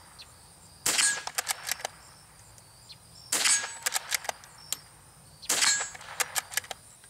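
Marlin Model 25 bolt-action .22 LR rifle fired three times, about two and a half seconds apart, each shot followed by a quick run of clicks as the bolt is worked to eject the spent case and chamber the next round.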